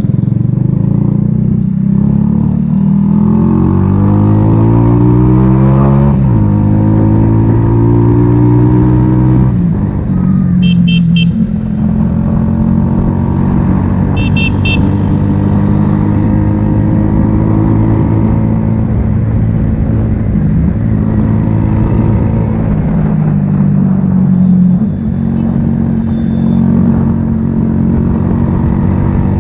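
A 70cc motorcycle's single-cylinder four-stroke engine, fitted with an aftermarket exhaust, revving up under way: its pitch climbs over the first few seconds, drops sharply at a gear change, then holds fairly steady at cruising speed. A horn beeps in two quick bursts, about ten and fourteen seconds in.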